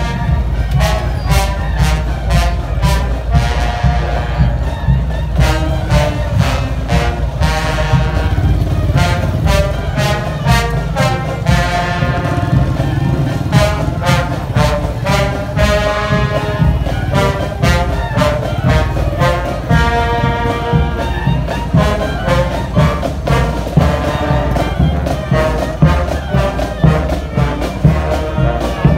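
Marching brass band playing: trumpets, trombones and sousaphones over a steady drum beat.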